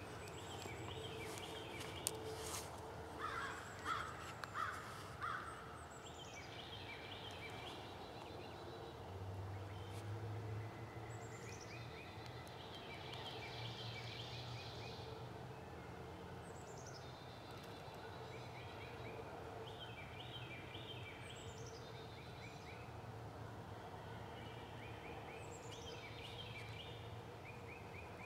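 Wild turkey hen on her roost giving a short series of about four yelps a few seconds in. Behind her a songbird repeats a phrase, a downward slur followed by a run of chirps, about every four seconds.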